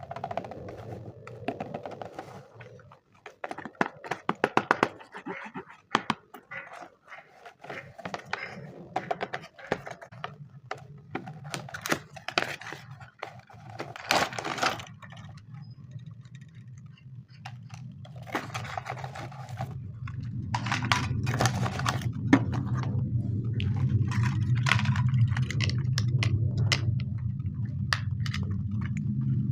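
Toy packaging being handled and opened: rustling, scraping and tearing of plastic and cardboard with scattered clicks. About two-thirds of the way in, a steady low hum rises in and keeps going under the handling noises.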